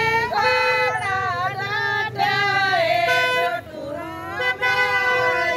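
Group of women singing a Haryanvi badhawa folk song together, the melody bending and breaking between phrases. A steady flat tone sounds underneath from about three seconds in.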